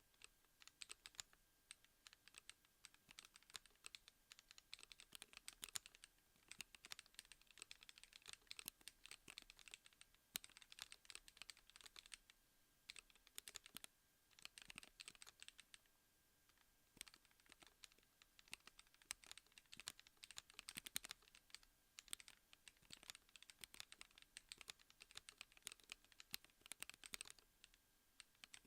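Typing on a Gravity 36 keyboard: a quiet, steady stream of uneven keystroke clicks, with a few short pauses.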